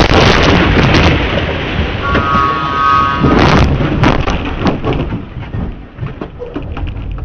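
Car collision heard from inside the struck car: a loud crashing noise carries on from the impact at the start, with a high tone held for about a second around two seconds in, another loud crunch about three and a half seconds in, then scattered clicks and rattles dying away.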